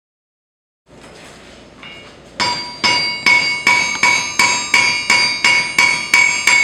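Blacksmith's hand hammer striking red-hot iron on an anvil, a steady beat of about two blows a second, each blow leaving a bright metallic ring from the anvil. The blows begin a little over two seconds in, after some faint noise.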